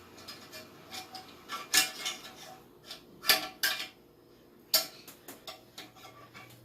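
Toilet flush lever being fitted into the tank: irregular sharp clicks and clinks of the handle and its parts knocking against the toilet tank, the loudest a little over three seconds in.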